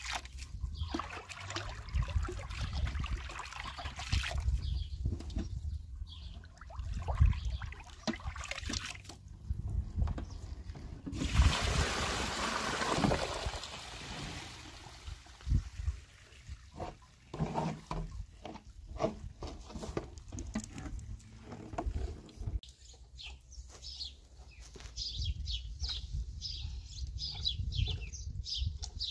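Water sloshing and splashing in a plastic basin as raw wool is washed by hand. Midway a basin of dirty wash water is tipped out onto the ground in a rush lasting a few seconds. Then comes the handling of the wet wool, with birds chirping near the end.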